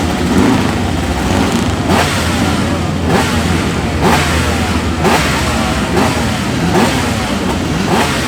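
Two-stroke racing motorcycle engine revved in sharp throttle blips about once a second, the revs falling away after each blip.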